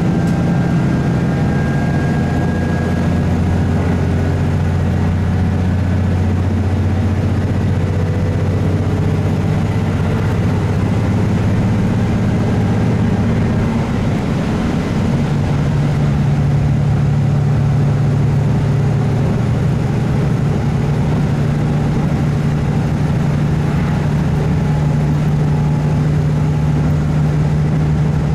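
Cummins diesel engine of a KiHa 75 railcar running under way, heard inside the car over steady wheel-on-rail rolling noise. About halfway through, the engine note steps up to a higher steady pitch.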